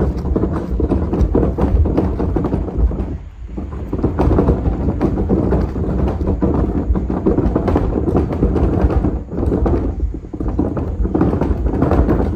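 Empty trash can being hauled back over thick, coarse gravel, clattering and rumbling continuously; it is so loud. The racket briefly eases twice, about 3 seconds and 10 seconds in.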